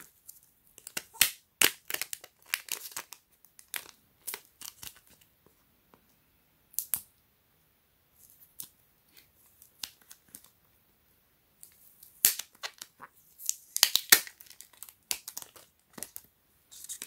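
Clear plastic wrap on a sealed iPhone box being peeled and torn off by hand: bursts of crinkling and tearing, with a quiet stretch in the middle.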